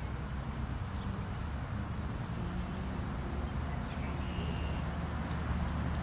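Steady low outdoor rumble with faint, short high chirps now and then, like small birds in the distance.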